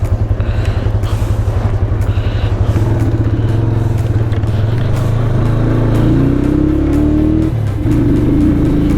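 Motorcycle engine running with a low, even pulse, then pulling away: its pitch climbs for a few seconds, drops briefly at a gear change near the end, and holds steady after.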